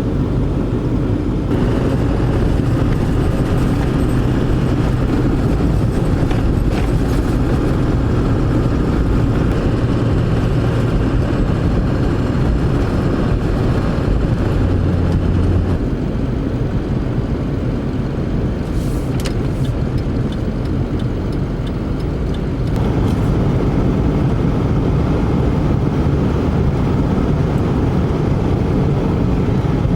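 A car on the road, with steady engine and tyre noise, easing off for a few seconds in the middle.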